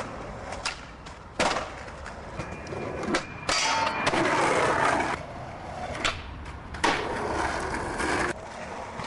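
Skateboard wheels rolling on concrete, broken by several sharp clacks of the board popping and landing, with a louder, longer stretch of board noise about midway.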